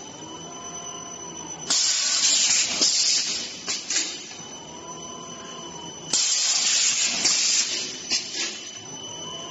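Fully automatic non-woven apron making machine running through its repeating cycle: a loud hiss about every four and a half seconds, twice here, and between the hisses a machine whine that rises and falls in pitch over a steady high tone.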